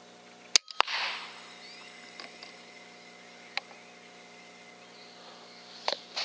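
An FX Impact M3 .30 PCP air rifle fires, and about a quarter second later the pellet hits the quarry with a sharp smack, followed by a brief rustle. A single click comes a few seconds later, and two more sharp clicks follow near the end.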